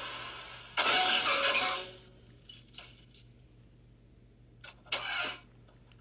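Cartoon car sound effects: a loud burst of engine noise about a second in, then a few clicks and a shorter burst near the end.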